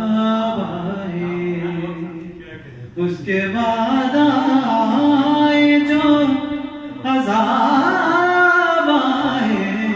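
A man singing a ghazal, drawing out long held notes that bend and waver in pitch, in three phrases with short breaks about three and seven seconds in.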